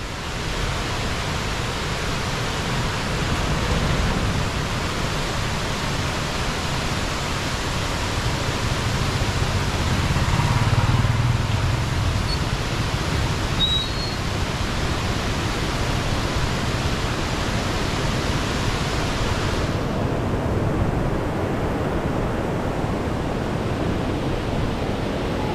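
Steady rushing of a small waterfall, heard as an even, loud hiss. A low rumble swells and fades about ten seconds in, and the sound turns duller, with less hiss, about twenty seconds in.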